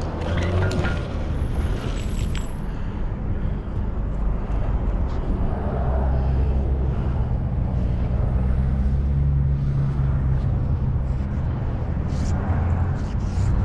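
Road traffic passing close by: a steady low rumble of cars that swells about five seconds in, with a few light clicks near the start.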